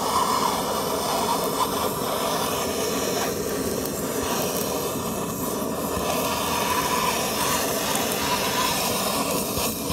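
Handheld gas torch burning with a steady hiss as its flame is held on kindling in a wood stove's firebox; the hiss cuts off at the end.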